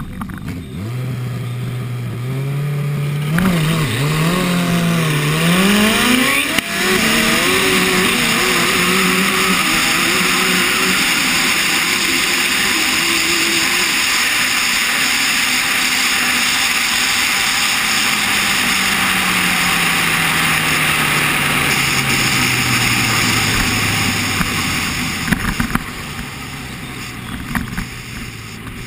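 Turbocharged Suzuki inline-four motorcycle engine idling at the start line, then revved in rising blips before launching about six seconds in. Through the run a heavy rush of wind on the microphone covers much of the engine, and near the end the engine note falls steadily as the bike slows.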